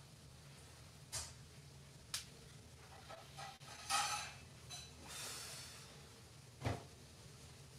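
Faint room sounds over a low steady hum: a few short knocks, about a second in, two seconds in and near the end, and a louder breathy rustle in the middle.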